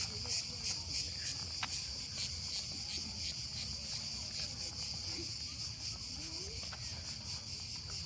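Cicadas chirring in a steady high-pitched chorus, pulsing rapidly for the first second or two.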